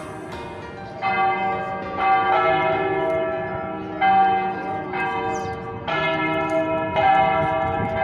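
Church bells of Almudena Cathedral ringing: bells of different pitch struck in turn about once a second, each note ringing on under the next.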